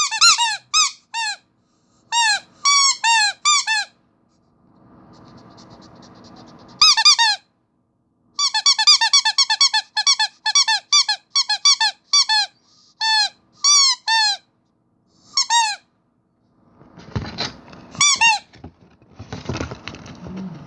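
Rubber squeaky starfish toy being squeezed over and over, giving short high squeaks in quick runs of several, with pauses between the runs. Near the end a rougher rubbing, scraping noise takes over.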